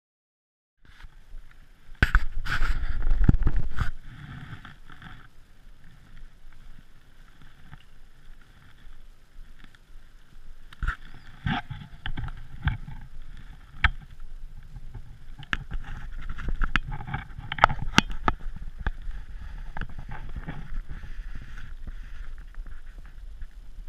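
Wind rumbling on the microphone, strongest for a couple of seconds near the start, with scattered clicks and knocks from the camera and sunglasses being handled.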